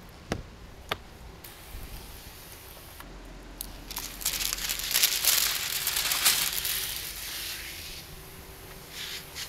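Hand pump sprayer misting soapy water onto window glass: a loud, crackly spraying hiss that starts about four seconds in and fades out some four seconds later. A couple of light clicks come before it.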